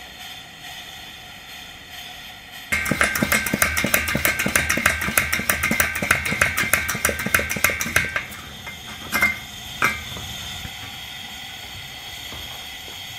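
Vintage Coleman 500 white-gas stove burner running with a steady hiss. About three seconds in it breaks into rapid loud sputtering and crackling for about five seconds, with two more pops a little later, before settling back to a steady hiss. The sputtering is the sign of a burner not yet fully preheated, with liquid fuel getting through.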